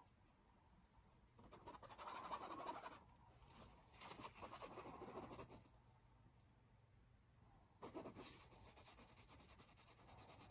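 Faint rustling and scratching in three short stretches, about a second and a half in, four seconds in and near eight seconds, over quiet room tone.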